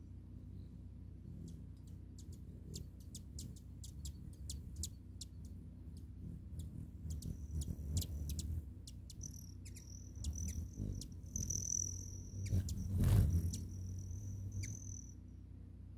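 Hummingbirds at a feeder: many quick, high chip notes, then the low whir of wings as birds hover close, loudest about thirteen seconds in. A steady high insect trill runs underneath in the second half.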